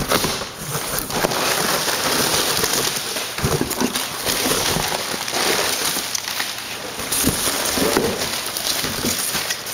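Packaging crinkling and tearing as a set of BMX handlebars is unwrapped: a continuous crackle with irregular sharper snaps.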